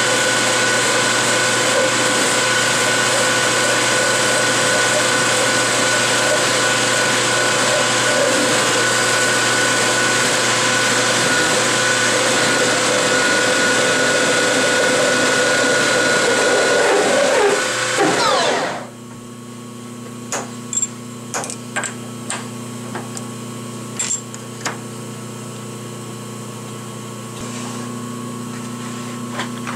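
A 13-inch metal lathe spinning chrome moly tubing at about 2000 RPM against a stationary tube for a friction weld: a loud, steady grinding and chattering of the rubbing joint over the machine's running. About 18 seconds in the lathe is shut off and winds down, falling in pitch, and then stops, leaving a quieter hum and a few sharp clicks and knocks.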